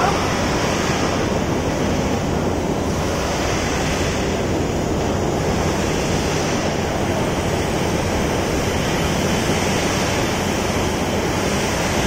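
Steady rushing noise with no clear pitch or rhythm.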